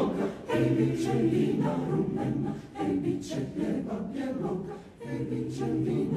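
Mixed-voice choir singing a cappella in phrases, with short breaths between them about two and a half and five seconds in.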